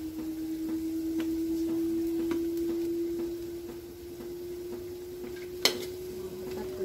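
A steady pure tone that slowly rises in pitch, loudest in the first few seconds, over faint clicks of a glass bottle and a metal ladle as sauce is poured. One sharp click comes about five and a half seconds in.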